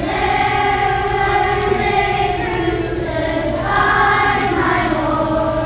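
A children's choir of grade 3 and 4 pupils singing together in long, held notes.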